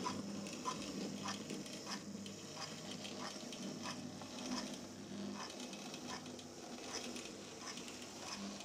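Hornby B12 class model locomotive running on track: its small, primitive motor hums steadily, with a regular light ticking about one and a half times a second as it goes.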